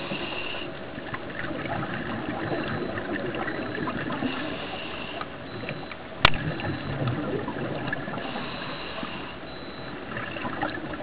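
Muffled underwater noise heard through a camera housing: scuba divers' exhaled bubbles gurgling over a steady hiss, with one sharp click about six seconds in.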